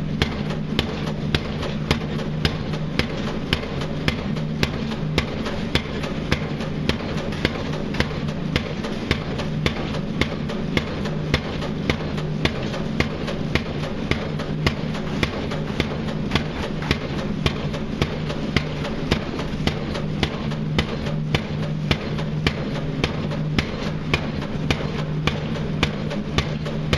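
Pile driver hammering a pile: sharp, evenly spaced blows a little under two a second, over a steady engine drone.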